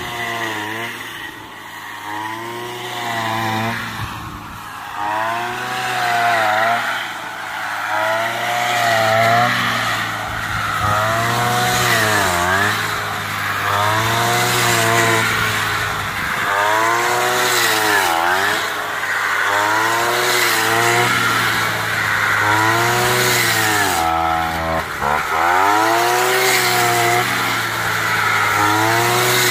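Handheld brush cutter engine cutting standing rice stalks, its pitch rising and falling over and over, about every one and a half to two seconds. It is quieter for the first few seconds.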